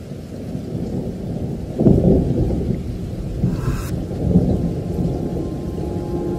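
A loud, irregular low rumble that swells about two seconds in.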